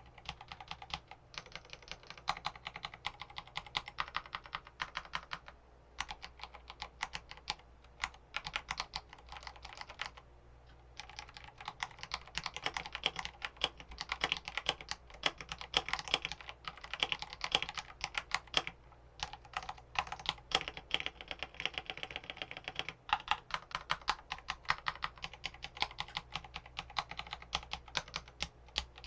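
Typing on a TES68 mechanical keyboard with tactile frankenswitches (Purple Panda stems in Gateron Brown housings) and Akko Wave keycaps: fast, steady runs of keystrokes with an almost clicky sound, broken by a few short pauses.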